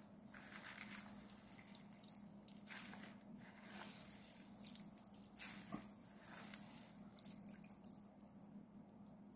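Faint squishing of a wet cheesecloth as salted bellflower root is wrung inside it, with brine dripping into a stainless steel bowl in irregular small drips and splashes.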